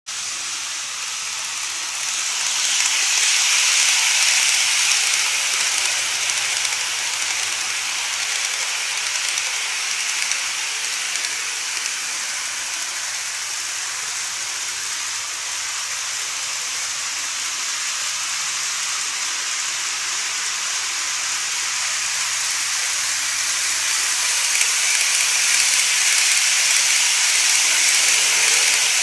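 N-gauge model trains rolling on plastic elevated track: a steady rolling hiss of small wheels and motors, louder about three seconds in and again near the end as a train runs close by.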